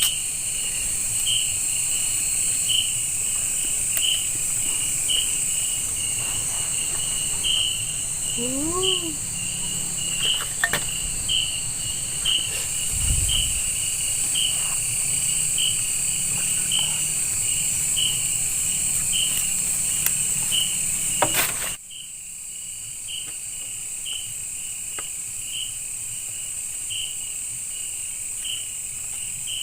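Night chorus of crickets and other insects in tropical forest: a steady high buzz with regular, evenly spaced chirps over it. About two-thirds of the way through the whole chorus suddenly drops quieter.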